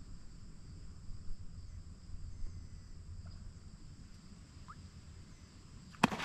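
Faint outdoor ambience: a low steady rumble with a faint steady high buzz over it, and one sharp click near the end.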